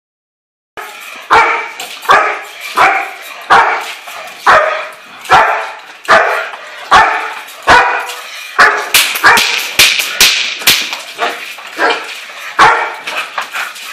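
German Shepherd barking over and over, one bark about every three-quarters of a second, quickening about nine seconds in. This is the dog's drive barking at the start of bite-work training.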